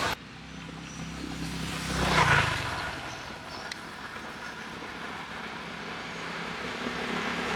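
Street traffic: a motorbike engine passes close, swelling to a peak about two seconds in and fading, then a steady low traffic hum.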